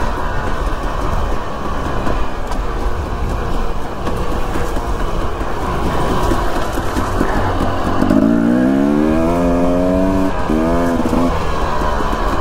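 Dirt bike engine running over rough, noisy ground, revving up about eight seconds in with its pitch climbing for a couple of seconds before it drops off.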